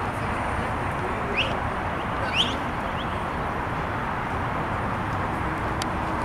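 Steady outdoor background noise with low rumble. A bird gives two short rising chirps about a second apart, a little after the start, then a fainter third.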